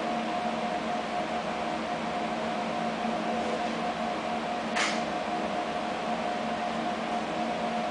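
Steady machinery hum over even hiss, holding a few fixed tones, with one short burst of hiss almost five seconds in.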